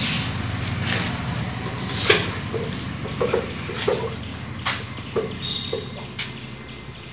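Light knocks and small splashes as a live red tilapia is handled and put into a plastic jar of water, over a steady low hum from the fish tank's pump or filter and a faint high whine.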